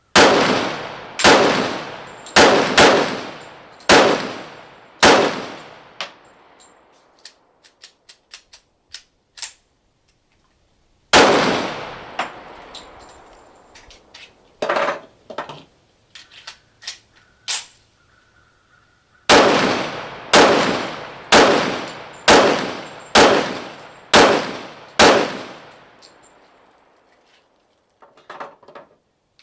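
Para Ordnance GI Expert 1911 pistol firing .45 ACP rounds: a string of about six shots about a second apart, a single shot, then a second string of about seven shots, each with an echoing tail. Lighter clinks and clicks sound between the strings.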